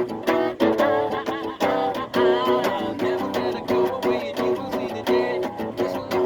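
Instrumental music led by guitar: quick, steady plucked notes with a wavering lead line above.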